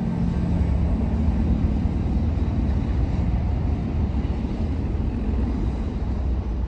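Low, steady rumble of a distant intermodal freight train, mixed with wind on the microphone.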